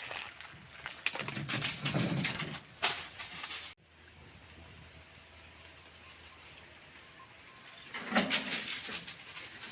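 Rustling and crackling noises, cut off abruptly a little under four seconds in. A quieter stretch follows with about five faint, short, high bird chirps evenly spaced, then the rustling starts again near the end.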